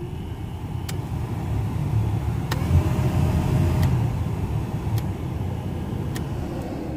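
A newly installed replacement blower motor in a 1997–2004 Chevrolet Malibu's heater system runs as the fan-speed knob is stepped up through the speeds and back down. The air rush and a faint motor whine rise to their loudest about three seconds in, then ease off, with a click at each knob step. The new motor works at every fan speed, which shows the old motor, not the resistor, was the fault.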